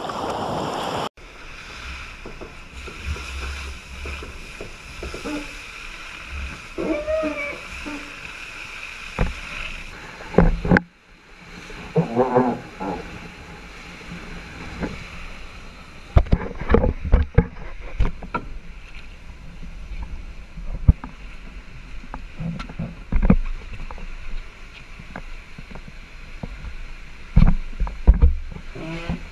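Boat under way at sea: steady water and wind noise with irregular knocks and thumps, broken by a couple of abrupt cuts.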